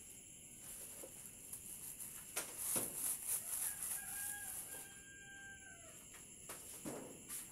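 A rooster crowing once, a long held call about four seconds in. A few sharp knocks come before it and another comes near the end.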